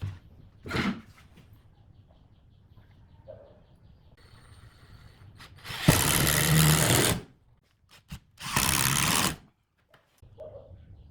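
Two loud bursts of hissing, rushing noise from a workshop tool, the first about a second and a half long and the second about a second, over a faint steady machine sound with a light regular ticking.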